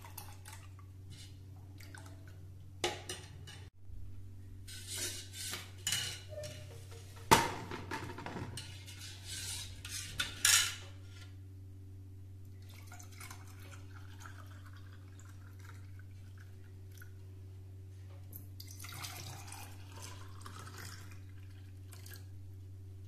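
Steel ladle clinking and scraping against a stainless steel bowl as buttermilk is stirred, then a softer splashing of the buttermilk being poured from the bowl into drinking glasses in the second half. A steady low hum runs underneath.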